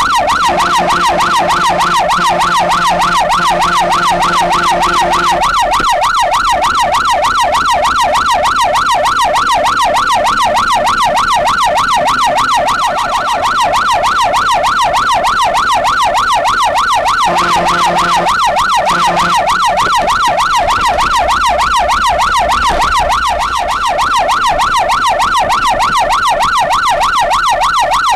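Fire engine's siren sounding continuously in a fast up-and-down warble, heard from on board the moving truck. A lower steady horn note sounds with it for about five seconds near the start, and again for about two seconds later on.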